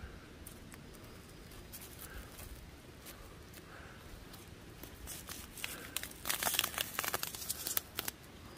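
Crinkling and crackling of a white foam mesh fruit net being handled among the leaves of an avocado tree, a quick cluster of sharp crackles over about three seconds in the second half, after a few seconds of quiet.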